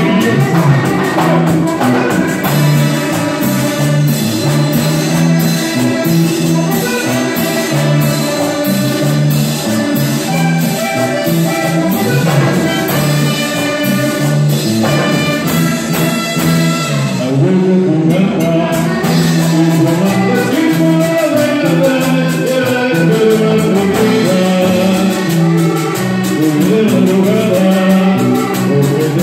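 Salsa-style Latin dance music: a band with brass and a steady percussion beat over a repeating bass line, with singing.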